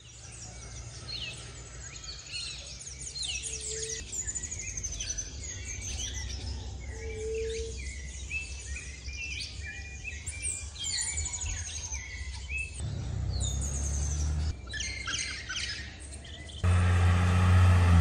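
Many birds chirping and calling at once in a dawn chorus, with short rapid overlapping calls. Near the end a louder, steady low engine rumble from a school bus starts abruptly.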